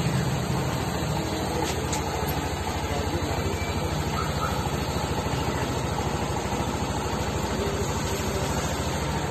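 Yamaha NMAX scooter's single-cylinder engine idling steadily, with an even low pulsing beat.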